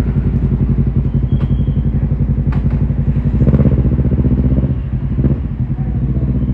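Yamaha YZF-R1's crossplane inline-four running steadily through its stock exhaust, briefly louder about halfway through.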